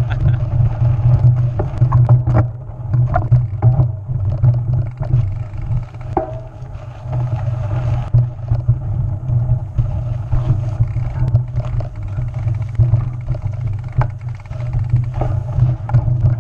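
Steady low rumble of wind buffeting an action camera's microphone while a mountain bike rides a rocky singletrack, with scattered clicks and knocks from the bike rattling over the rough ground.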